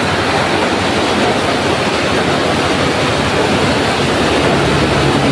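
Steady rain falling, a dense, even hiss. A low hum joins near the end.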